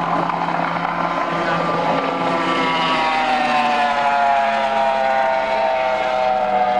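High-performance outboard race boat at full throttle on a top-speed pass, its engine's high whine dropping steadily in pitch as it goes by and pulls away.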